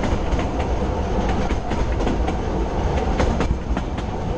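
Narrow-gauge steam train coach rolling along the track: a steady rumble of the wheels with irregular sharp clicks and knocks from the running gear on the rails.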